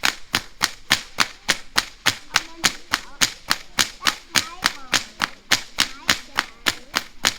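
A whip being cracked over and over in a fast, even rhythm: sharp cracks about three times a second.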